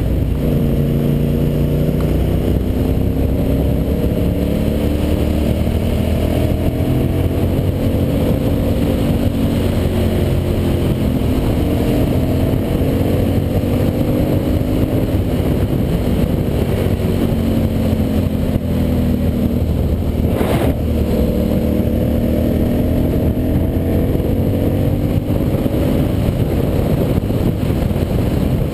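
Ducati Monster 800's air-cooled L-twin engine under way, its pitch climbing steadily and dropping back at each gear change, over a constant rush of road noise. A brief knock sounds about two-thirds of the way through.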